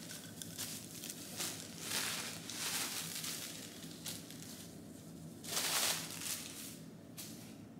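Packaging rustling and crinkling in a series of short irregular bursts as a parcel is handled, the loudest burst a little past the middle.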